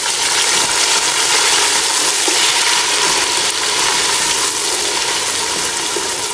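Browned onions and oil sizzling in a steel pot after a splash of water has gone in, stirred with a wooden spoon: a steady hiss.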